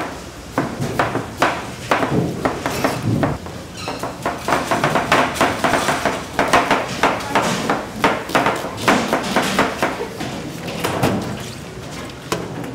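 Chef's knife slicing vegetables on a plastic cutting board, each stroke a sharp knock, in a quick steady run that is thickest in the middle.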